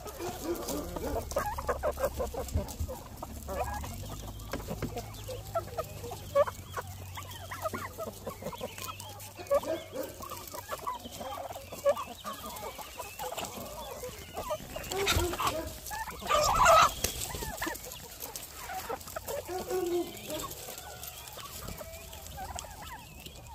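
A flock of free-range chickens clucking and calling over one another, with a louder burst of squawking about two-thirds of the way through.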